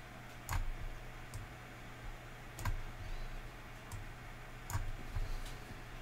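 Computer mouse clicking a handful of times at uneven intervals as the amplitude step buttons are pressed, over a steady low hum.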